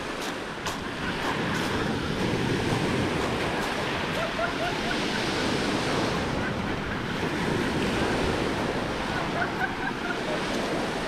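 Small sea waves washing steadily onto a pebble and gravel shore, with some wind on the microphone.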